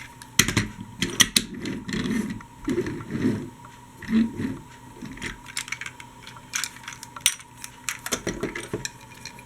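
Chuggington die-cast and plastic toy trains clicking and knocking as they are handled and coupled together, with a scattering of small sharp clicks and some duller rubbing and rolling noise in the first few seconds.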